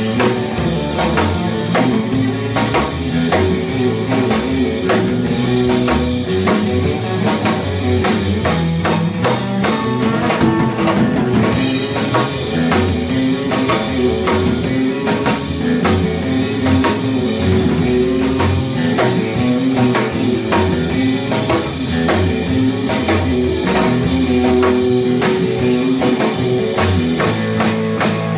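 Live instrumental surf rock: two electric guitars playing over a drum kit keeping a steady beat.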